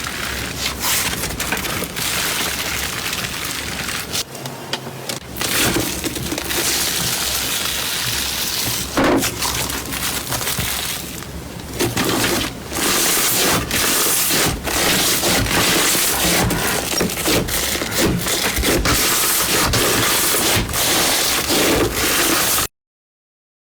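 Slime being squeezed and pressed, a dense run of crackling and popping that cuts off suddenly near the end.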